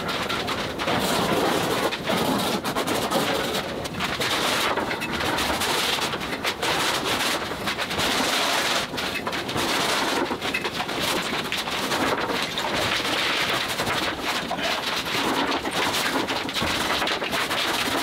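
Wide brush scrubbing and slapping acrylic paint onto a large canvas, sped up into a dense, continuous crackling clatter.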